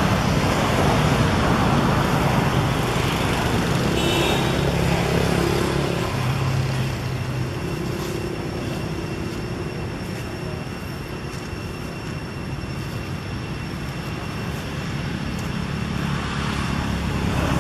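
Steady background noise like nearby road traffic, with a low engine hum; it eases off in the middle and swells again near the end.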